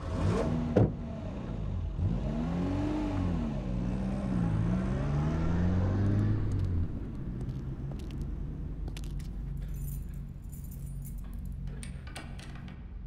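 Eerie sound-design drone whose low pitch swoops up and down in slow arches under a hiss, with a sharp click just under a second in. About seven seconds in it gives way to a steady low hum with faint scattered ticks and scrapes.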